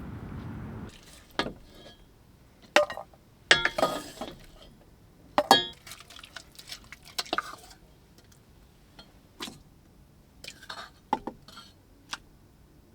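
Utensils clinking against cookware and dishes in a series of separate sharp clinks with short ringing, as a cooked lentils-and-rice meal is served. A steady low rush in the first second stops abruptly.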